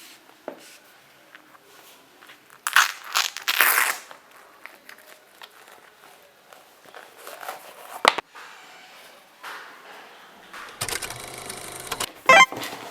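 Irregular crinkling and rustling of something being handled, with a louder stretch about three seconds in and a sharp click around eight seconds in.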